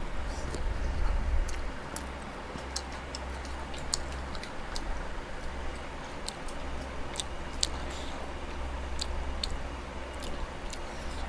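Close-up eating sounds: chewing with scattered, irregular small clicks and smacks of the mouth, over a steady low hum.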